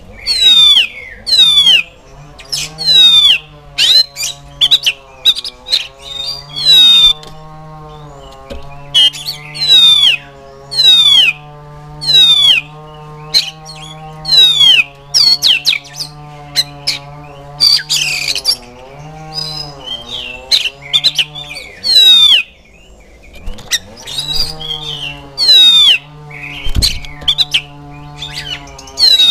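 Oriental magpie-robin (kacer) calling loudly: sharp whistled notes that sweep up and down in pitch, repeated about once a second. A low wavering drone runs underneath through most of it.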